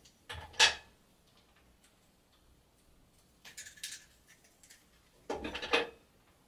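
Perm rods being unclipped and pulled out of hair: three short bursts of plastic clicking and hair rustling.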